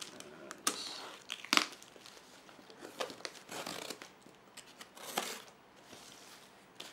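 A cardboard shipping box and the plastic packing-slip pouch taped to it being handled: irregular crinkling and rustling with a few sharp clicks, loudest about a second and a half in and again around five seconds.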